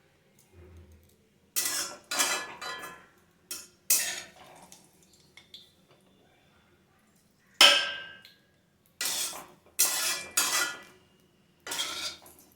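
A metal spoon clanking and scraping against a kadai and bowl: about nine sharp, ringing knocks at irregular intervals, the loudest about two thirds of the way through, as the fried mustard-oil tempering is scooped from the pan into the chicken marinade.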